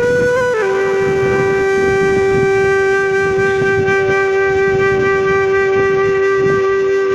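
Background music: a wind instrument steps down through a couple of notes in the first half-second, then holds one long steady note.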